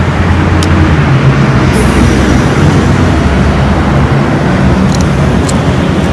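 A steady low mechanical rumble, like a motor or traffic running close by, is the loudest sound throughout. Over it come a few light clicks as the plastic latch of a GoPro waterproof housing is unclipped and the housing is opened.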